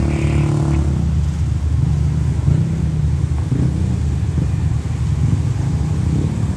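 Motorcycle and car engines idling and pulling away together, a steady low engine rumble from a crowd of road traffic.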